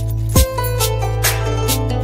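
Background music with a deep bass line and a drum beat.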